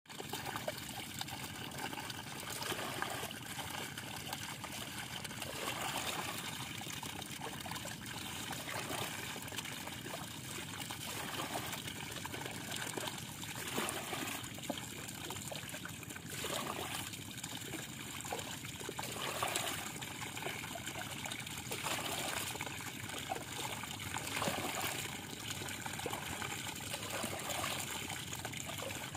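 Water pouring in a steady trickling stream through a gap in a mud bank into a woven bamboo basket fish trap, getting louder for a moment every few seconds.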